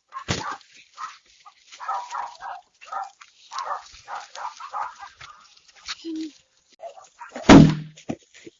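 A dog barking and yelping in a quick series of short calls, with one much louder bark near the end.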